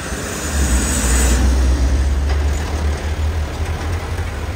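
Diesel dump truck's engine driving past close by, a steady deep drone, over general road traffic noise, with a brief hiss about a second in.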